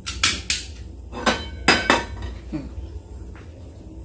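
A frying pan knocking against the metal burner grate of a gas stove as it is set down and moved into place: five sharp metallic clanks in the first two seconds, then a couple of fainter knocks.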